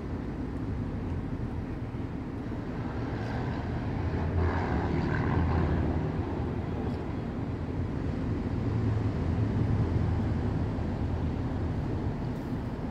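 Vehicle engine and tyres droning steadily, heard from inside the cab while driving slowly on beach sand, a little louder about four to six seconds in and again near ten seconds.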